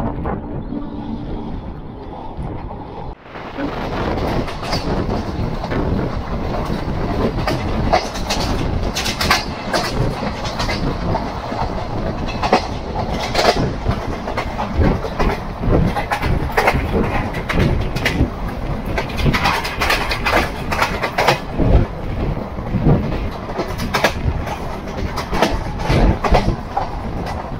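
Express train coaches running on the track, their wheels clicking over rail joints in irregular clusters above a steady rumble. For the first three seconds the rumble is duller, then it cuts abruptly to the fuller, clicking sound.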